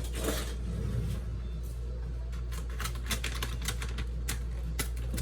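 A new container of pineapple being opened by hand: a run of sharp, irregular clicks and crackles, a few a second, thickest in the second half.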